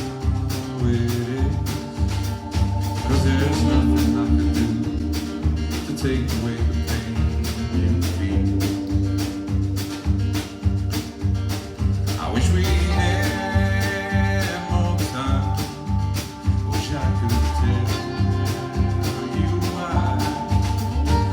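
Country rock band playing a song live, with guitars over a steady beat.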